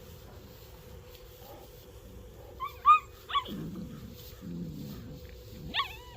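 Puppies yipping and whimpering: a few short, high, sliding yelps about three seconds in and again near the end, with lower, rougher puppy noises between them.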